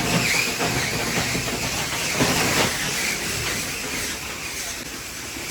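Ice-crushing machine running as crushed ice is loaded into a fishing boat's hold: a steady, noisy rush with a few faint knocks.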